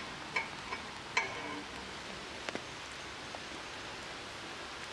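Steady rain falling, an even hiss, with a few sharp knocks in the first couple of seconds.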